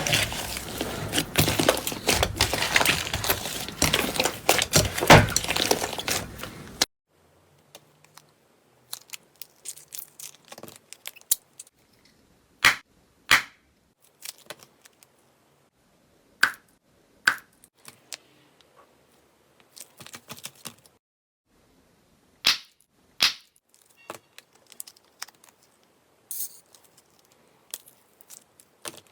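Slime being worked by hand: dense crackling that stops abruptly about seven seconds in, followed by sparse sharp pops and clicks, several coming in pairs.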